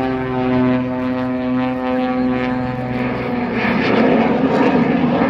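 Aerobatic biplane's piston engine and propeller in flight. A steady droning note gives way about three seconds in to a rougher, louder, noisier sound as the plane manoeuvres.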